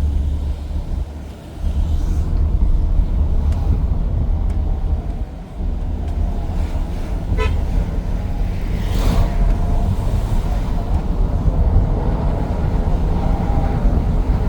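Road vehicle running, a steady low rumble, dipping briefly twice in the first half.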